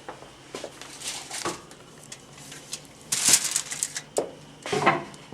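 Scattered knocks and clicks of kitchen handling, with two short, louder rustling bursts, one about three seconds in and one near the end.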